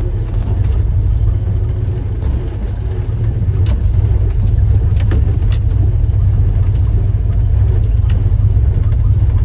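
A Jeep driving on an off-road track: a steady low engine and drivetrain rumble with frequent sharp clinks and rattles as it bounces along.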